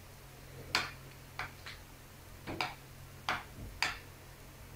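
Metal spoon clicking against a ceramic bowl while fried dough sticks are turned in honey syrup: about seven sharp, irregular clinks.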